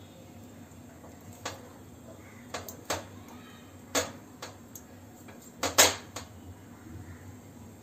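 Metal kitchen tongs clacking against a gas stove's pan support and burner while turning an eggplant that is roasting over the flame. The sharp metallic clacks come scattered, the loudest near six seconds in, over the low steady hiss of the gas flame.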